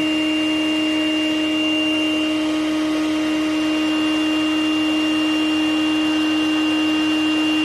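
Wet/dry shop vac running steadily, a constant whine over a rushing hiss, as it sucks water and sediment out of a clogged heat-pump condensate drain line.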